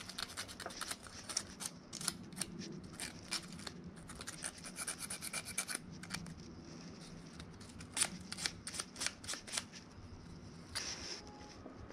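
Small strip of sandpaper rubbed in quick, uneven short strokes over the metal contact of a scooter's front brake-switch wiring connector, scraping to clean it. This is part of the repair of a stop lamp that does not light.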